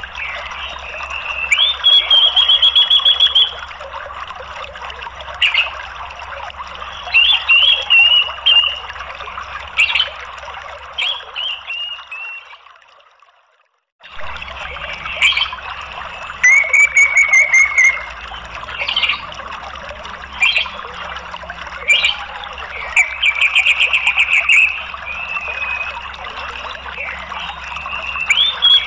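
Orange-headed thrush calling in short warbled phrases and rapid, high-pitched chattering trills, over a steady rush of running water. About halfway through, the sound fades and drops out for a second or two, then picks up again.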